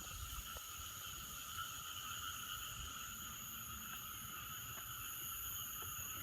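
Night chorus of frogs and insects calling together, a steady unbroken trilling in several high-pitched layers, with a low rumble underneath.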